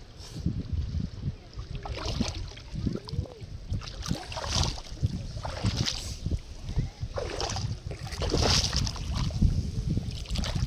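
Seawater sloshing and splashing in repeated swishes, over a steady low rumble of wind on the microphone.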